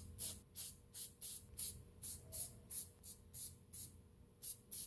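Aerosol can of zinc weld-through primer spraying in short hissing bursts, about three a second.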